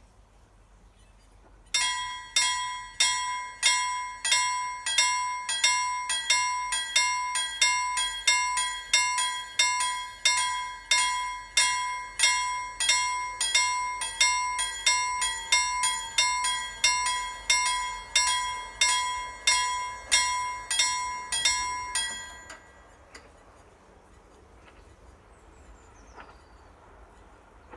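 Level-crossing warning bell ringing in even single strikes, a little under two a second, each with a clear metallic ring. It starts about two seconds in and stops suddenly some twenty seconds later, once the barriers are fully down, leaving only faint background.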